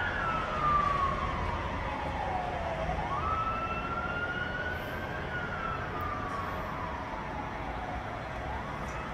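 A siren wailing slowly over a low steady rumble. Its pitch slides down for about three seconds, jumps back up, climbs gently, then slides down again near the end.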